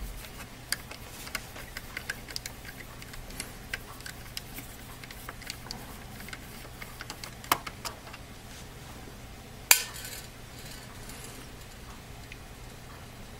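Precision screwdriver turning out a small screw from a laptop's plastic back plate: a string of light, irregular metallic clicks and ticks, with a few sharper clicks, the loudest about three-quarters of the way through.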